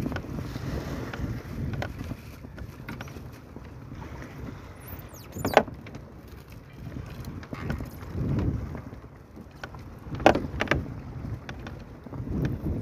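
Wind on the microphone and a low rumble aboard a small wooden fishing boat, with a sharp knock about halfway through and two more close together near the end.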